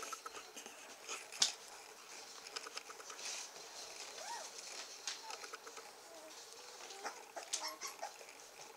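Three-and-a-half-week-old Saint Bernard puppies making a few faint, short high squeaks and whines while they crawl and wrestle, over light scratching and pattering of paws on a blanket. A single sharp click stands out about a second and a half in.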